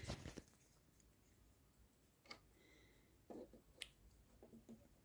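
Near silence with a few faint, sharp clicks and soft handling noises.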